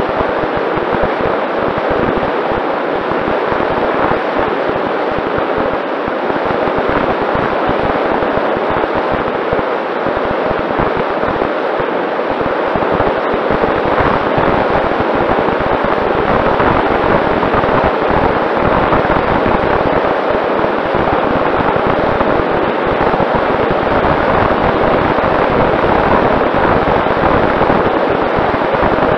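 Loud wind rush and buffeting on the onboard camera of a Mini Talon RC plane in flight, with the steady hum of its Sunnysky 2212 brushless motor and propeller running underneath.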